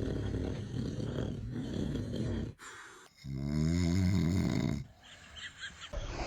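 A man snoring: a rough, rattling snore for about two and a half seconds, then after a short break a second, more tonal drawn-out snore.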